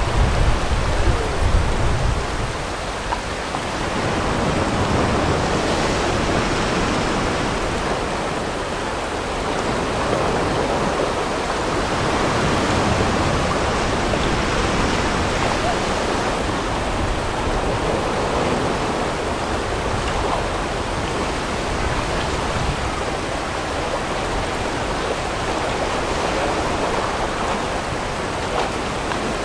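Whitewater rapids rushing and churning around a raft in a steady, unbroken wash of water noise, with a heavier low rumble in the first couple of seconds.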